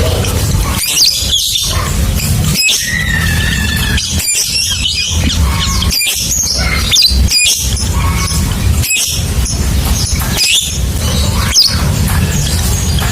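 Lovebird chattering in its long 'ngekek' song: rapid sharp squeaks, chirps and whistled pitch glides, over a steady low rumble.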